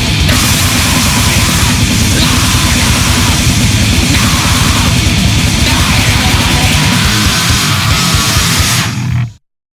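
Grindcore band recording playing at full volume, heavy and dense with pounding low drums, cutting off abruptly to silence a little over nine seconds in as the track ends.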